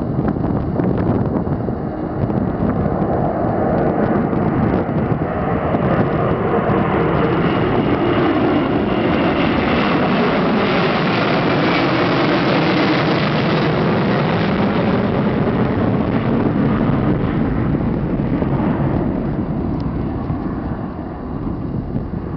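Boeing 767-200's twin jet engines at take-off thrust as the airliner climbs out and passes overhead: a loud, steady jet noise that builds to its loudest about halfway through, then eases a little as the aircraft pulls away near the end.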